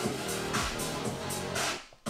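Background music with a steady beat, dropping out briefly near the end.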